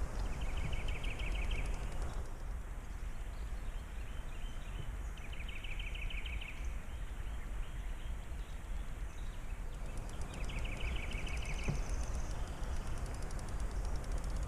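A bird trilling three times, each a rapid run of notes lasting about a second and a half, spaced about five seconds apart, over a steady low rumble.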